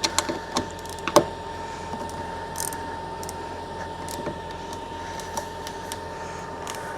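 Scattered clicks and knocks of a socket ratchet and metal tools working the small nuts that hold a car door mirror, the loudest about a second in, over a steady faint high hum.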